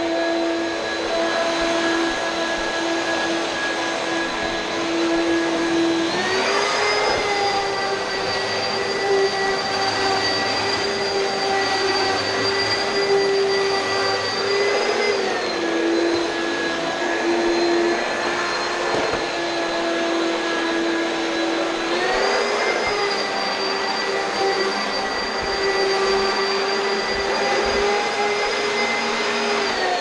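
Oreck XL2 upright vacuum cleaner running steadily on hard floors. Its motor hum steps up in pitch about six seconds in, settles back down near the middle, then rises again and falls back near the end.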